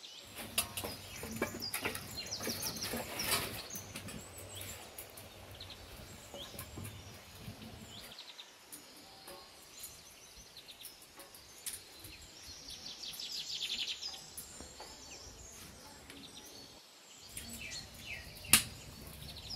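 Birds chirping and trilling in quick repeated runs, with faint rustling and clicks of a wooden spatula stirring raw vegetables in a wok. One sharp knock near the end.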